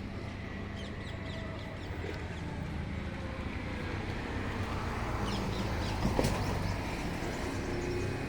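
Steady low hum of vehicle engines from road traffic, with birds giving short high chirps now and then and a brief sharp noise about six seconds in.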